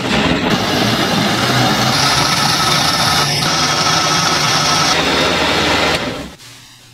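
A loud motor-driven machine running steadily, with a faint steady whine in its noise. It starts suddenly and stops about six seconds in.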